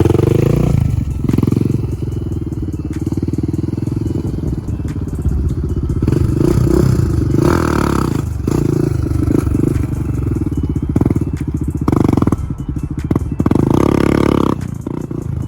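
Honda TRX400ex quad's single-cylinder four-stroke engine revving up and down under throttle, with several sharp surges of revs about halfway through and near the end, as the quad is ridden in wheelies.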